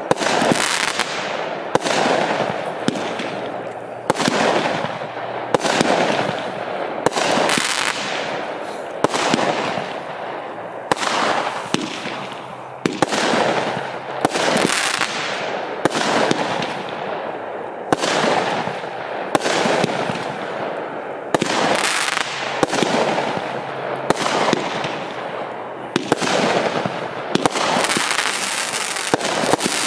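A 25-shot, 26 mm consumer firework cake firing shot after shot, about one a second, each a sharp report followed by a fading noisy tail as the burst breaks.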